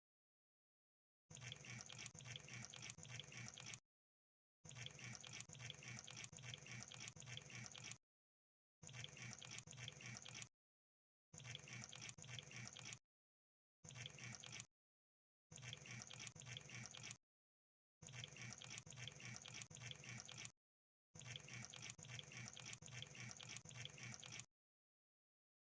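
Crab sound effect: eight bursts of rapid clicking and crackling, each lasting about one to three seconds, separated by short silent gaps.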